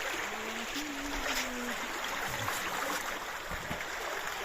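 Mountain stream water running steadily, with a man's voice heard briefly in the first two seconds.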